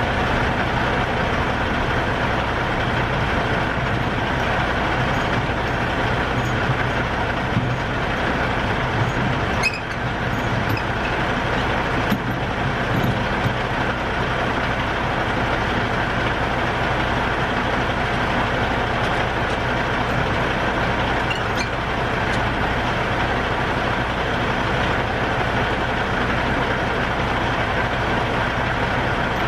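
Semi truck's diesel engine running steadily, with a brief dip and a sharp click about ten seconds in and another click a couple of seconds later.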